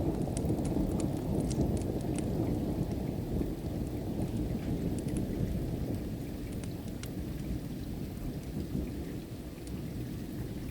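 A low rumble of thunder slowly dying away under steady rain. Sparse sharp pops and crackles of a wood fire come through, more of them in the first couple of seconds.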